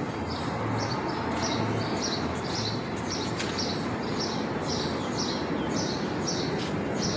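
A bird chirping over and over, short high notes about twice a second, over a steady hiss of city background noise.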